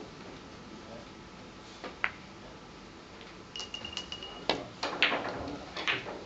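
Billiard balls striking: a single sharp click about two seconds in, then a quick run of clicks and knocks from about three and a half seconds on, as the balls hit each other and the cushions.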